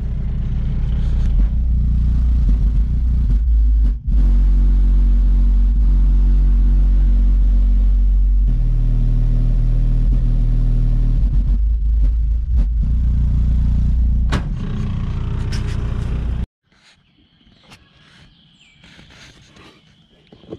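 Deep bass line of a song played loud through a large Sundown Audio car subwoofer, held notes changing every few seconds. It cuts off suddenly about sixteen seconds in, leaving faint rustling and handling clicks.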